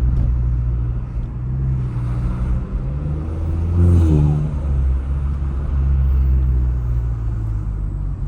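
Mk7 Volkswagen Jetta's turbocharged engine, running through a muffler delete and an aftermarket intake, pulling under acceleration: the revs climb to a peak about four seconds in, then drop back and settle.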